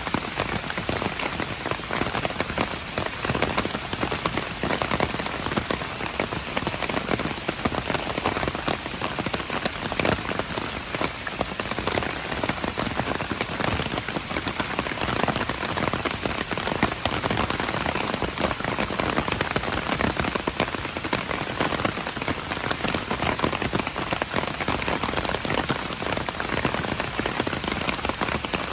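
Steady rain falling on hard surfaces, a dense, even patter of many drops.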